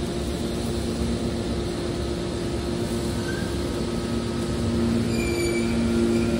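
Hydraulic scrap metal baler running: a steady hum from its electric motor and hydraulic pump. The hum gets a little louder about five seconds in, when faint high squeals come in.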